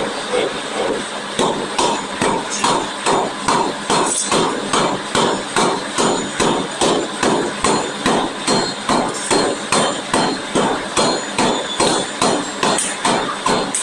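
Forging hammer striking in a rapid steady rhythm, about two blows a second.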